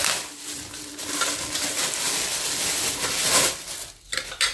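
Plastic wrapping rustling and crinkling as it is pulled off a sealed mop handle, easing off about three and a half seconds in, then a few light clicks near the end.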